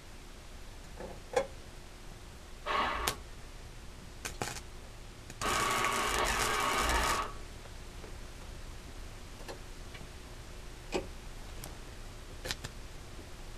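Wire-feed welder arc crackling in two bursts: a short one about three seconds in and a steadier one of nearly two seconds around six seconds in, with a few sharp clicks between.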